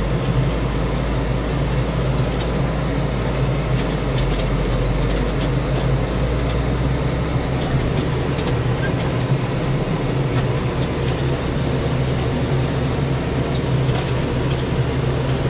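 Tractor's diesel engine running at raised throttle under steady load, heard from inside the cab while pulling a hay rake slowly across the field: a continuous low drone that holds even throughout.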